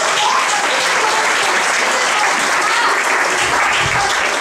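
Audience applauding steadily right after a held band note ends, with crowd voices mixed in.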